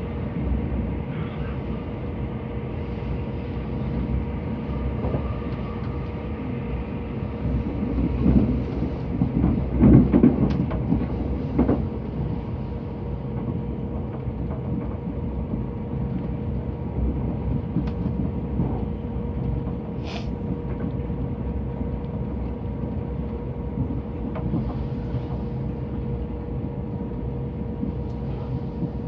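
A Southern passenger train running along the line, heard from on board: a steady rumble of wheels on rail under a constant hum. The rumble swells for a few seconds about a third of the way in, and there is a single sharp click about two-thirds of the way through.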